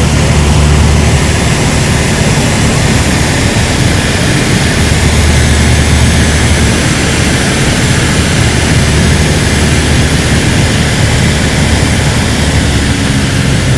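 Light aircraft's engine and propeller droning steadily, heard inside the cabin with loud rushing airflow.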